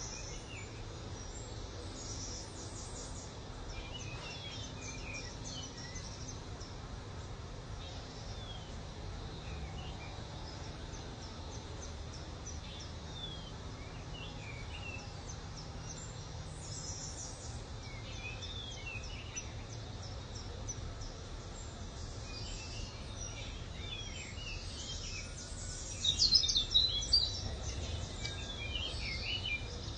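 Many small birds chirping and calling over a steady low background hum, with a louder flurry of calls a little before the end.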